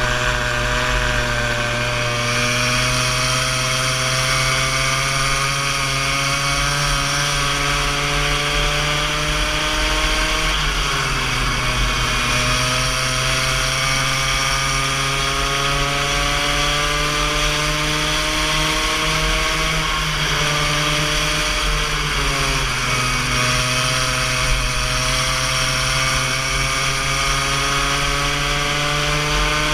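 Go-kart engine running under load. Its pitch climbs slowly along the straights and falls off sharply twice, about ten and twenty seconds in, as the throttle is lifted for corners, then climbs again.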